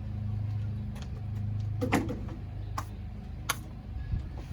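Several sharp clicks and clinks of tools and parts being handled during work in a truck's engine bay, over a low steady hum that fades out about halfway through.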